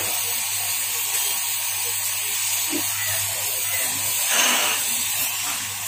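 Gas blowtorch burning with a steady hiss over a low hum, swelling briefly about four seconds in.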